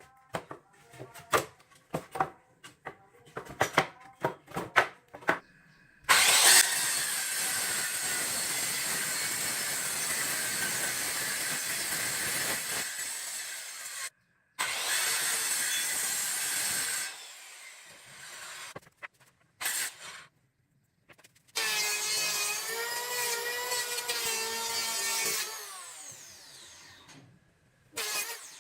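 Woodworking tool sounds on scrap wood: a string of sharp knocks and taps, then power tools cutting or sanding in two long steady stretches. Later a motor whines, its pitch wavering under load.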